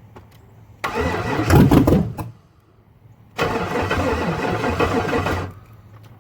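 A swapped LS V8 cranked over by its starter twice, each try lasting about one and a half to two seconds, firing briefly on a little gas poured in but not staying running.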